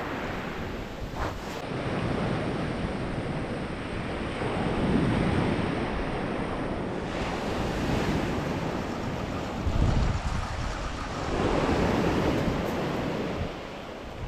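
Sea waves breaking and washing on the beach in several surges, with wind buffeting the microphone.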